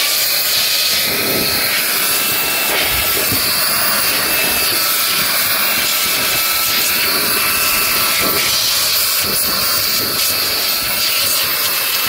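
Makita handheld blower running steadily, a continuous rushing hiss of air with a faint steady whine from its fan, blasting dust and straw off a combine harvester's machinery.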